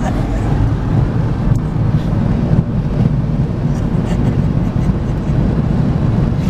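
A car driving at highway speed, heard from inside the cabin: a steady, deep rumble of tyre, road and engine noise.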